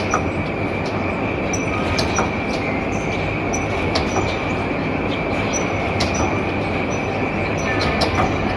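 Printing press running: a steady mechanical clatter with a constant high whine and sharp clicks every second or two.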